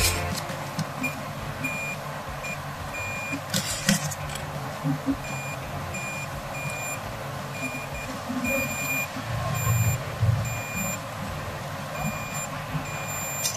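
Electronic buzzer on an Arduino IR obstacle detector beeping on and off in uneven bursts of one steady high tone, sounding each time the IR sensor detects a hand close in front of it. Handling knocks and rustles from the board, loudest about four seconds in and around ten seconds in.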